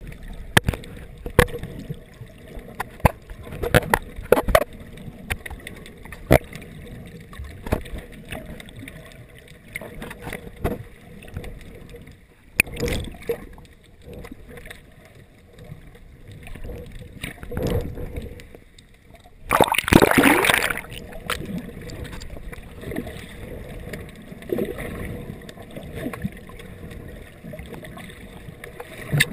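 Muffled underwater sound through a GoPro dive housing: water sloshing and gurgling around the camera, with scattered sharp clicks and knocks. About twenty seconds in, a louder rush of water lasts about a second.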